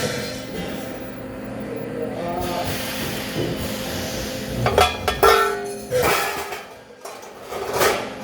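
Background music with a steady hum, broken by a few sharp metallic clinks and knocks, the loudest about five seconds in and again near the end.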